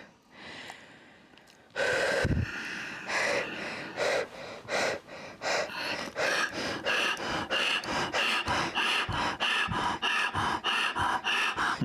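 A woman breathing hard in short, forceful gasps. It starts about two seconds in and settles from about six seconds into a fast, even rhythm of two to three breaths a second: paced breathing through pain.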